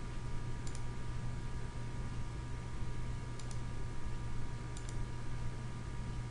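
A few faint computer mouse clicks, each a quick double tick of press and release, over a steady low electrical hum.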